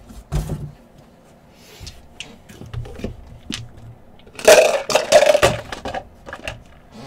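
A collectibles box being opened by hand: scattered clicks and scrapes, then a loud burst of plastic wrapping and cardboard being torn and rustled about halfway through.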